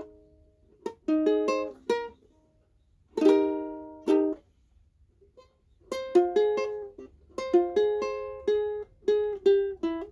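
Ukulele strummed by hand through a chord progression: short runs of quick down-and-up strokes with brief pauses between them, and one chord left ringing about three seconds in.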